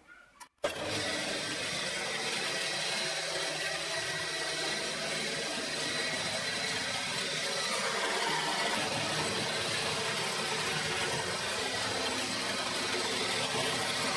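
Drill press motor switched on about half a second in, then running steadily while 1.5 mm holes are drilled into a small metal torch burner disc clamped in a vise.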